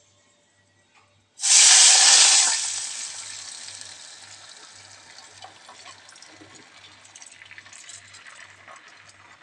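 Soaked moong dal and rice poured with their soaking water into a pot of hot oil and fried whole spices. A loud sudden sizzle starts about a second and a half in as the water hits the oil, then dies away over several seconds into a faint crackle.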